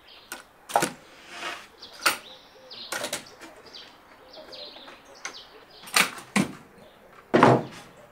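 Wooden knocks and clunks as a long hardwood board is set into and lifted out of plywood vertical gravity edge clamps, with about six sharp knocks spaced irregularly.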